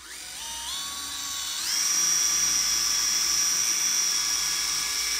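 Cordless drill spinning a center drill into a broken steel screw: the motor starts up and its whine steps up twice in pitch over the first couple of seconds as the trigger is squeezed further, then holds a steady high whine while cutting.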